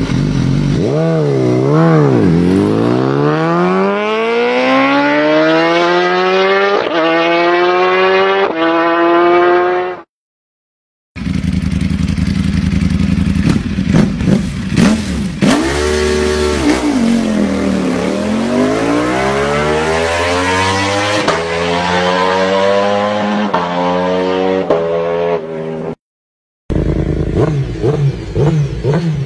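Three superbike engines heard in turn, each clip cut off by a brief silence. First, a BMW S1000RR inline-four revs once and then accelerates, its pitch climbing steadily for several seconds. Then a Ducati Panigale V4 blips the throttle, falls and climbs again in pitch, and near the end a Honda CBR1000RR-R SP inline-four blips the throttle.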